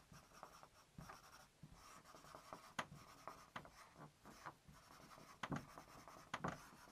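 Marker pen drawing on a whiteboard: faint, quick scratching strokes, several a second and irregular.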